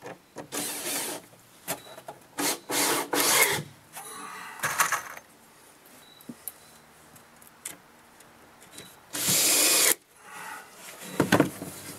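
A plywood nest-box divider being fitted into place: a series of short scraping, rasping sounds and knocks, the longest and loudest about nine seconds in.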